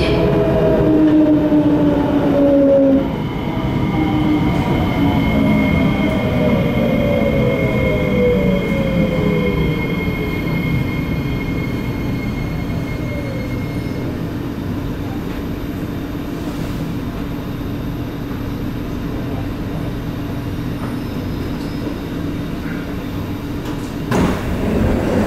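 C751B metro train's traction motors whining in several tones that fall in pitch over about ten seconds as the train brakes to a stop in the station, then a steady hum from the standing train. A brief louder noise comes near the end.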